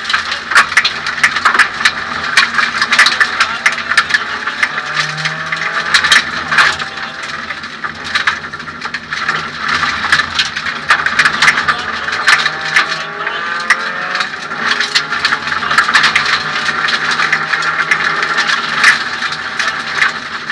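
Suzuki Swift 1600 N2 rally car heard from inside the cabin at racing speed. The four-cylinder engine rises in pitch again and again as it is driven hard up through the gears, over constant rattling and clicking from the stripped-out interior.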